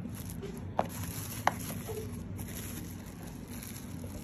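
Two brief sharp clicks, the second a little louder and about a second after the first, over a low steady hum, while finished kibbeh are handled.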